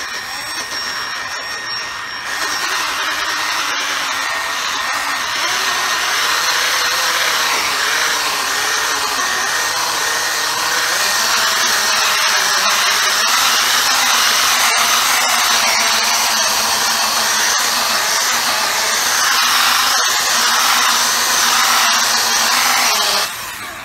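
Small variable-speed polishing buffer running steadily against a motorcycle saddlebag's paint, cutting scratches out of the clear coat. Its whir grows louder about two seconds in and cuts off just before the end.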